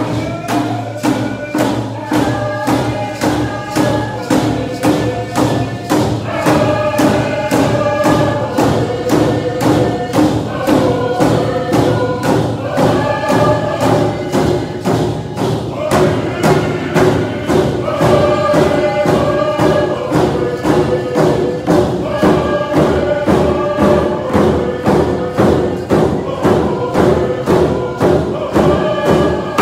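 A group of voices singing a Coast Salish canoe-family song in unison over hand drums struck together in a steady beat, about two beats a second.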